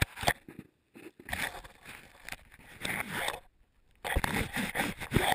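Handling noise: fingers rubbing and knocking against the recording camera or phone, in irregular scraping bursts with a few sharp clicks.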